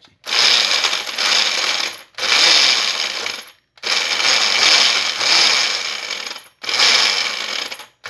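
Walita Delta Selector blender motor run in four pulses of one to three seconds each with short stops between, its grinder jar chopping hard toasted bread into breadcrumbs.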